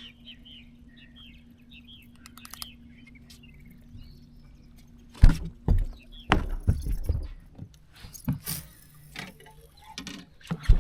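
Faint short chirping calls over a low hum. About halfway through, a burst of sharp knocks and rattling begins, like fishing gear being handled and set down in the boat.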